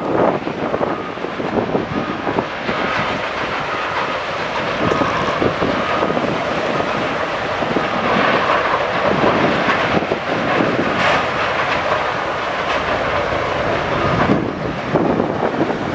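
Sawmill machinery running, a dense continuous clatter of knocks and rattles with a faint steady whine underneath.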